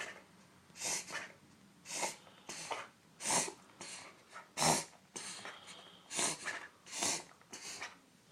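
A puggle dog in a bout of noisy, laboured breathing: a run of harsh, rasping breaths, one or two a second.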